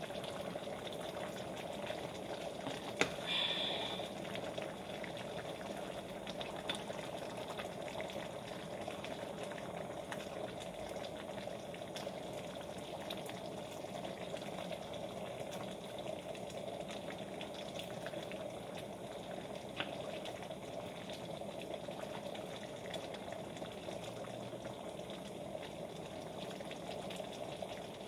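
Pot of black-eyed peas boiling steadily on the stove, a continuous bubbling hiss. Light clicks of a ladle against the pot come now and then, with a brief scrape about three seconds in.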